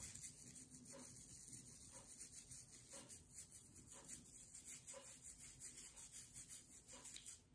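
A toothbrush scrubbing a small rock in quick, faint back-and-forth strokes.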